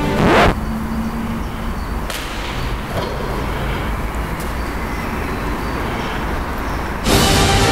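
A quick loud whoosh, then a low steady rumble of background noise; music comes in near the end.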